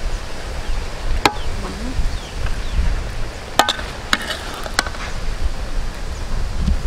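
A metal ladle knocking against a large aluminium wok: a sharp, ringing clink about a second in, then three or four more between about three and a half and five seconds, over a low steady rumble.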